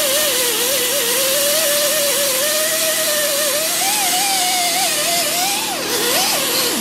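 Small pneumatic grinder with a worn 36-grit sanding disc running against welded sheet metal, a steady hiss of air with a whine whose pitch wavers up and down as the disc is pressed onto the weld, dropping sharply near the end. It is knocking down the high spots of the welds on a new cab corner.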